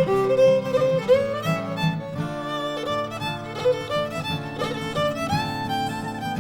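Background music: a violin melody with held notes and short slides over sustained chords.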